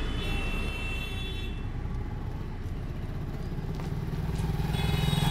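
Motorbike engines running on a street: a steady low hum, with a scooter passing at the start and another motorbike growing louder near the end.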